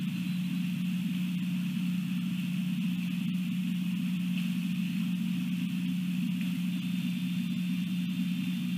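Steady low hum with a constant, fainter high-pitched hiss above it; nothing starts, stops or changes.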